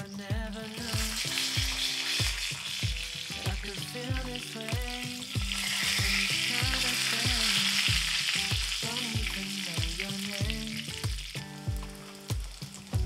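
Oil sizzling in a frying pan under stuffed flatbreads. The sizzle swells in the middle as one bread is turned over with a spatula. Background music with a steady beat plays underneath.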